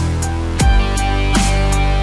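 Background electronic music with a steady beat: deep kick drums that drop in pitch, sharp snare-like hits, and held synth tones.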